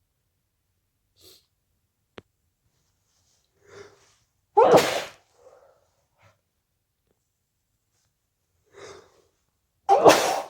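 A person with a cold sneezing twice, a few seconds apart, each loud sneeze preceded by a short inhale.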